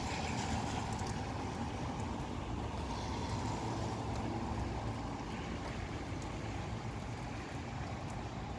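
Breezy storm-outflow wind rushing steadily through trees, with a low rumble of wind on the microphone and faint ticks of rain.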